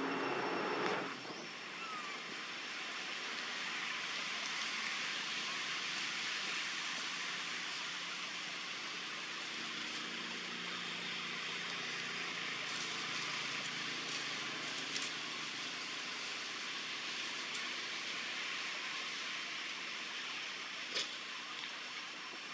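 Steady high-pitched outdoor background hiss, with a couple of faint clicks near the end.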